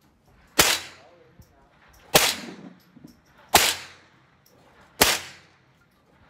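Tippmann M4-22 .22 LR semi-automatic rifle firing four single shots, evenly paced about one and a half seconds apart, each with a brief echoing tail.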